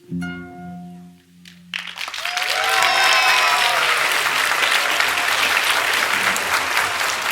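A final plucked kora chord rings out and fades, then about two seconds in the audience bursts into loud applause with whoops and cheers.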